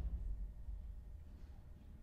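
Quiet room tone with a steady low hum; a deep boom fades away in the first half second.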